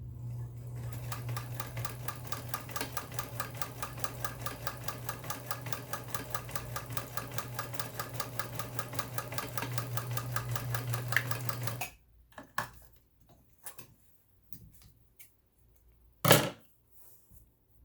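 Vintage Electra SX4000 sewing machine running steadily, a motor hum under a fast, even beat of needle strokes as it sews a zigzag test seam; it stops abruptly about twelve seconds in. A few light clicks and one sharp knock follow.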